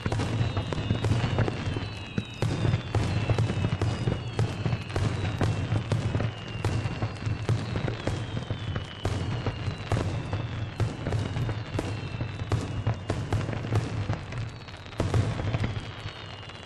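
Aerial fireworks shells bursting in rapid succession during a finale barrage: a dense run of bangs and crackles, with high tones that fall in pitch recurring every couple of seconds.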